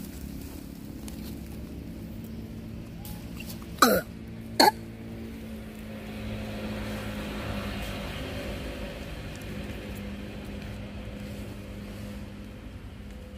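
Two short, sharp macaque calls about four seconds in, a little over half a second apart, each sliding quickly down in pitch, over a steady low hum.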